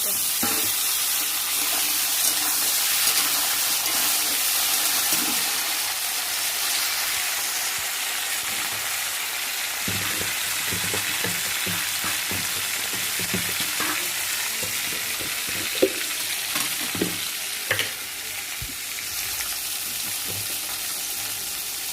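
Pieces of papaya, potato and raw green banana frying in hot oil in a pan: a steady sizzle, loudest just after the banana goes in. From about halfway, a spatula stirring the vegetables knocks and scrapes against the pan now and then.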